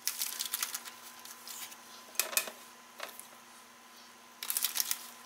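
Fingers scraping and stirring a damp seasoning rub around a ceramic bowl: four short bursts of quick, scratchy clicks, the first right at the start and the last near the end.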